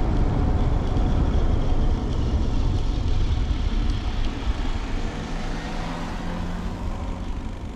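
Wind buffeting the handlebar-mounted action camera's microphone and tyre rumble as a bicycle coasts downhill, easing off gradually as the bike slows under braking. A car engine's faint hum comes in past the middle as the bike passes an SUV.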